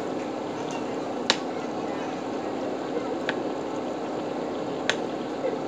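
Galunggong fish simmering in adobo sauce in a pan: a steady bubbling hiss over a low steady hum, broken by three sharp clicks spread a second and a half to two seconds apart.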